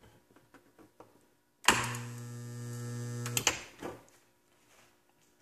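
Electric welder striking an arc: a sudden crackle, then a steady electrical hum for about two seconds, ending with another crackle as the arc breaks. Faint clicks of handling come before it.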